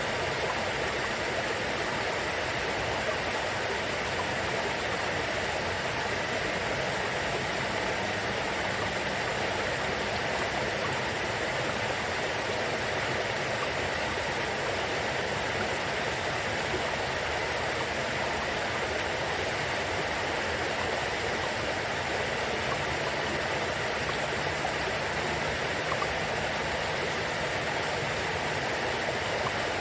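River water babbling and gurgling steadily over stones, an even rushing sound with no breaks.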